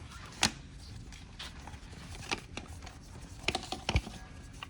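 Scattered sharp clicks and light knocks of plastic wiring connectors and harness being handled, about five separate clicks, the loudest near the end with a dull thump.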